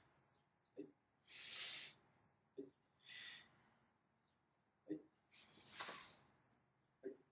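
Faint, forceful hissing exhalations of karateka breathing through a Goju-ryu kata. There are three hisses, each about half a second to a second long, and each is preceded by a short dull knock. A fourth knock comes near the end.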